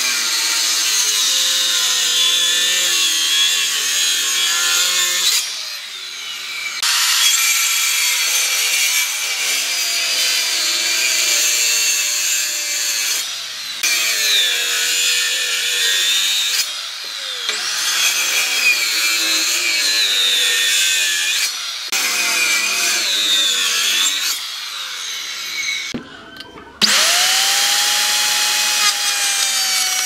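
Maktec handheld circular saw cutting a series of shallow kerfs across the end grain of a wood stump. Its whine wavers as the blade bites, and it stops briefly a few times between passes. About three seconds before the end, a DongCheng plunge router starts up with a rising whine and then runs steadily.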